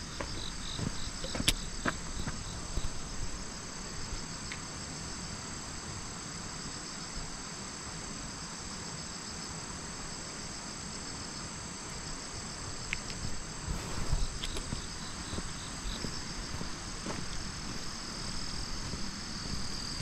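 Steady chorus of crickets and other autumn insects trilling, with an uneven low rumble of wind and movement underneath and a few light ticks.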